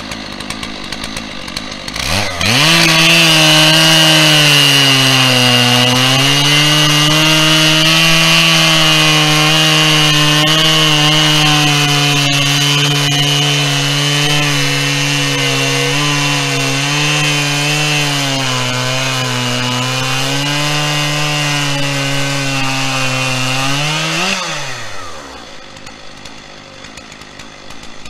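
Chainsaw mounted on a chainsaw mill, idling, then opened to full throttle about two seconds in and held there for some twenty seconds while it rips along a pine log. Its pitch sags a little now and then under load. Near the end the throttle is released and it drops back to idle.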